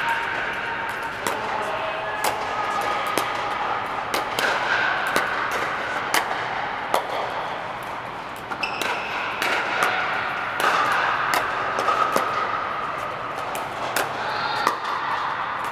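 Pickleball play on several courts inside a large air-supported dome: paddles striking hollow plastic balls and balls bouncing, a rapid, irregular run of sharp pops, over the distant chatter of players.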